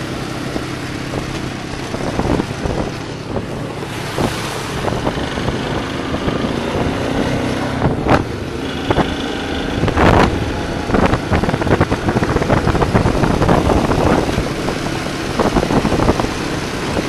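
Four-wheeler (ATV) engines running at riding speed over a gravel track, with wind buffeting the microphone and frequent short knocks and rattles from the bumpy ride, busier in the second half.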